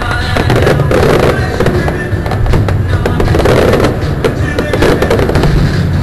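Aerial fireworks going off in quick succession, a dense run of bangs and crackles, with music playing underneath.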